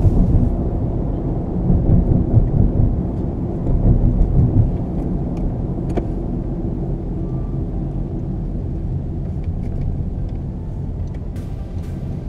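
Cabin noise of a 2016 Honda Civic EX on the move: a steady low rumble of tyres and engine, louder in surges over the first few seconds. A single click sounds about six seconds in.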